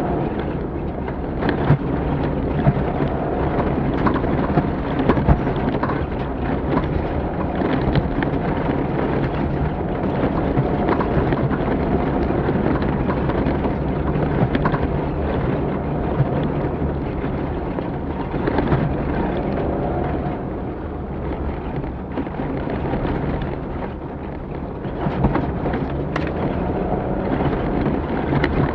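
Off-road rally vehicle driving hard over a rough track, heard from on board: a steady engine drone under a rumbling rattle, with many short knocks and bangs from the bumpy ground.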